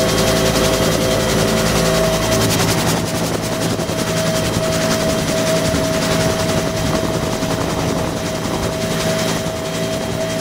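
Bell UH-1B Huey helicopter in flight, heard from inside the open-door cabin: steady Lycoming T53 turbine whine over the rhythmic beat of the two-bladed main rotor. About three seconds in, the low rotor thumping eases and the overall level drops slightly.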